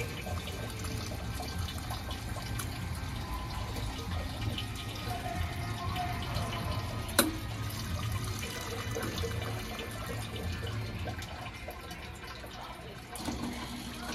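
Hot water splashing and draining inside a retro ramen vending machine as it tips the noodle bowl to drain and then sets it upright, over a steady low machine hum. A sharp mechanical click comes about seven seconds in.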